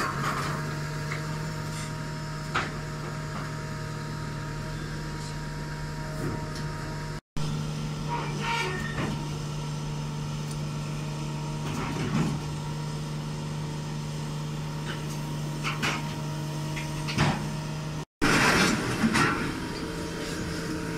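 Heavy scrap-processing machinery running with a steady low engine hum, broken by occasional clanks and bangs of heavy steel scrap being handled and fed into an inclined scrap shear. The clanks come closer together near the end.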